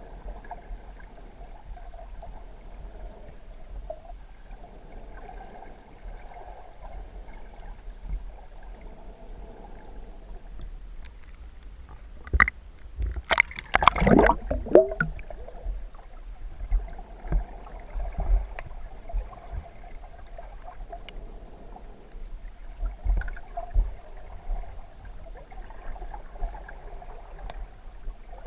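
Muffled water noise picked up by an underwater camera, low and steady, with a short burst of splashing and bubbling about halfway through as the camera comes up just under the surface.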